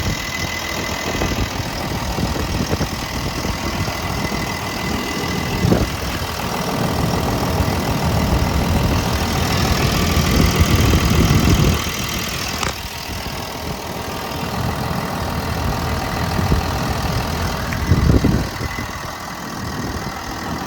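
5.7-litre Volvo diesel engine of an excavator idling steadily, heard up close at the engine. It grows louder for a few seconds about halfway through, then drops back, with a few short knocks along the way.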